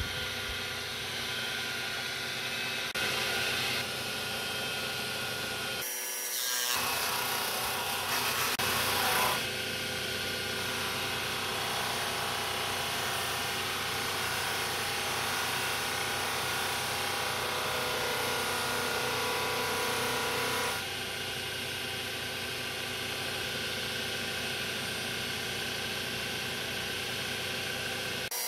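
An abrasive polishing wheel spinning on a lathe, with a steel rocker arm from a Honda TRX 350 cylinder head pressed against it: a steady machine hum under the hiss of metal rubbing on the wheel. The rubbing grows and eases a few times as the arm is worked against the wheel.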